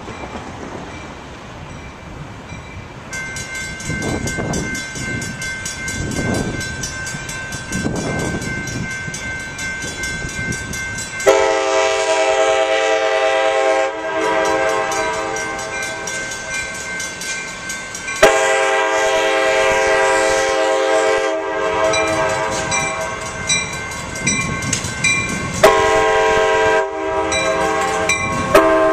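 A passenger train rolling past with wheel clatter and a steady high whine. Then train air horns, among them an Amtrak Surfliner cab car's Nathan K5LA five-chime horn, sound several blasts, long and short, beginning about eleven seconds in.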